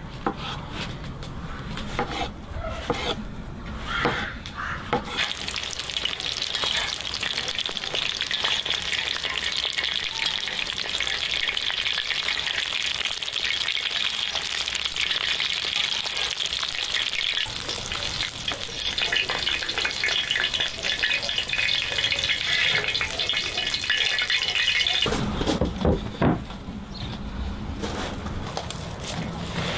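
A knife slicing button mushrooms on a wooden cutting board with a few sharp chops, then ribeye steaks sizzling in foaming butter in a cast-iron pan as they are basted with a spoon. The sizzle stops near the end.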